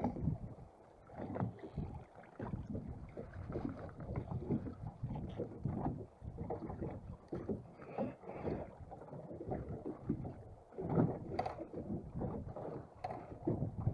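Small boat afloat: wind buffeting the microphone, with water sloshing against the hull and scattered light knocks.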